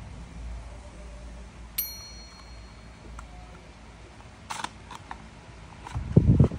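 Plastic clicks and handling knocks as a DJI drone battery is slid into its two-way charging hub, ending in a cluster of loud low thumps near the end. A sharp click with a short high ringing ping sounds about two seconds in.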